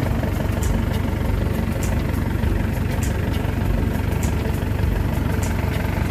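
Rice combine harvester's engine running steadily at idle, with a light high tick repeating at an even beat, a little less than twice a second.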